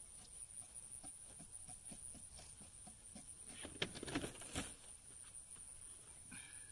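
Faint scraping and knocking of a shovel working dirt and gravel in a trench, loudest in a short cluster about four seconds in, over a steady high-pitched whine.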